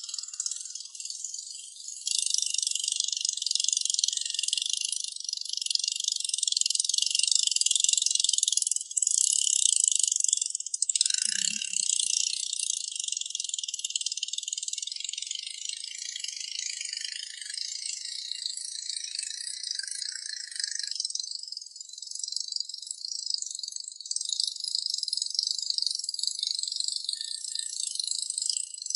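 Steady high-pitched insect buzzing, like a chorus of cicadas, with no engine or voices underneath.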